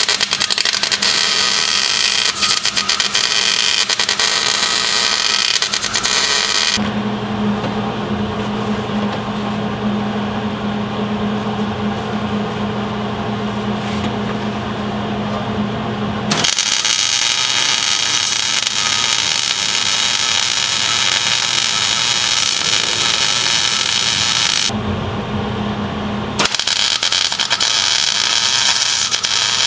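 Hobart MIG welder stitch-welding a steel engine-mount bracket, in three runs of arc crackle and hiss, the later ones starting about 16 and 26 seconds in. The first run crackles and pops, a sign that wire speed, heat or shielding gas are not yet set right. The later runs sound smoother, as a clean weld does. Between runs there is a low steady hum.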